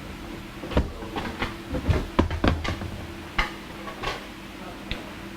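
A string of irregular clicks and knocks, heaviest about two seconds in, as the hot tub's control box is opened and handled to get at the control panel's cable connection.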